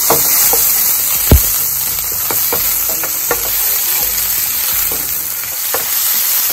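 Sliced red onions sizzling in hot olive oil in a frying pan, stirred with a wooden spatula. A steady sizzle, with a few sharp knocks, the loudest about a second in.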